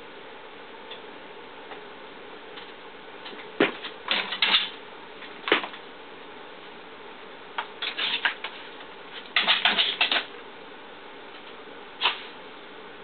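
A Basenji's paws and claws scrabbling and skittering on the floor as he bounces and play-bows, in bursts of quick clattering clicks several times, over a faint steady room hum.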